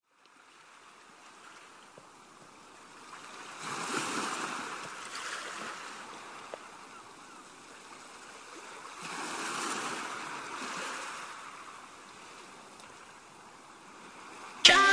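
Ocean surf: waves wash in and draw back, swelling twice. Music starts abruptly just before the end.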